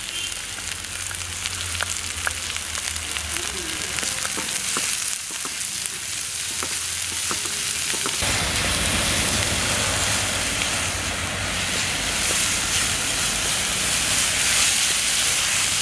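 Chopped onions sizzling in hot oil in a metal kadai as they are sautéed, stirred with a wooden spatula that clicks against the pan. The sizzle gets louder about eight seconds in.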